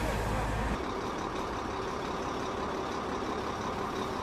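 Vehicle engine running steadily, with outdoor noise. A deep low rumble stops abruptly a little under a second in, leaving an even, steady background noise.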